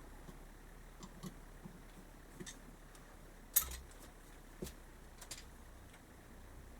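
Scattered light clicks and taps of small metal carburettor parts and tools being handled during reassembly, the sharpest one about three and a half seconds in.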